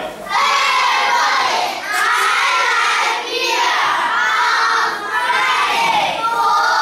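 A class of young children shouting words together in chorus, five loud phrases in a row, each about a second and a half long, as in a classroom drill answering flashcards.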